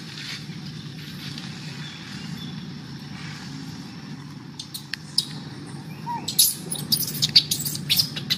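Outdoor ambience: a steady low hum, with a scatter of short, sharp ticks or chirps from about halfway in that grows busier near the end.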